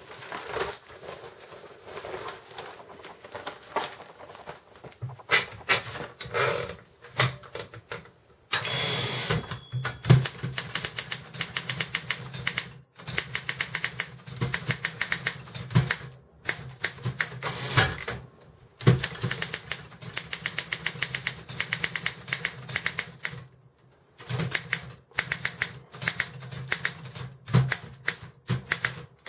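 Optima 16 typewriter being typed on: runs of sharp key strikes several per second, broken by short pauses. About nine seconds in there is a longer rattling sweep, typical of a carriage return.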